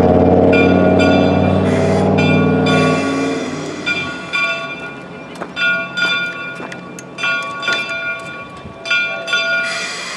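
Steam locomotive bell ringing steadily, about two strokes a second, as Shay No. 2 comes in. A loud low steady sound from the locomotive dies away about four seconds in, and a few sharp clanks sound partway through.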